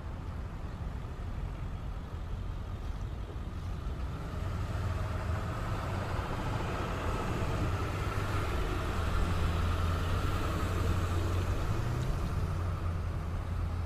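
Ceccato CSA-20 rotary screw air compressor running with a steady low hum, getting louder about a third of the way in and staying louder while it builds air pressure.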